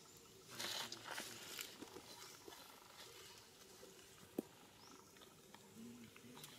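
Faint rustling and handling noises as a young monkey moves on stone and leaf litter and picks up food, with one sharp click about four seconds in and a brief low call near the end.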